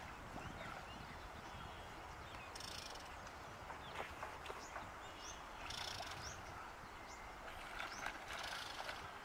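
Birds chirping in short scattered calls, with bursts of water splashing about 3, 6 and 8 seconds in as a cormorant thrashes with a large fish at the surface.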